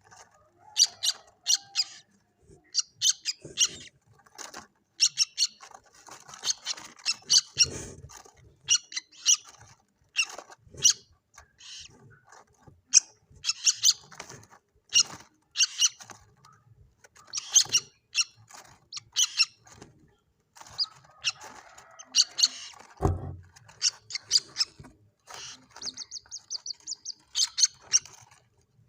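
Common moorhen (mandar batu) chicks calling: clusters of short, high-pitched peeps in quick runs, coming again and again at irregular intervals.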